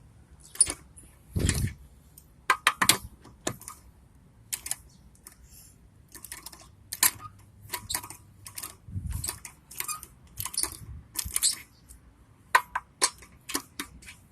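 Irregular sharp metallic clinks and clicks with a few dull thumps, from metal wheel hardware and tools being handled while a car wheel is worked off its hub.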